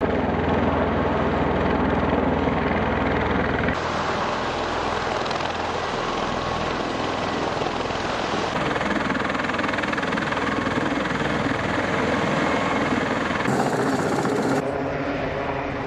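CMV-22B Osprey tiltrotor running on the ground, its twin turboshaft engines and rotors making a loud steady drone. The tone shifts abruptly several times.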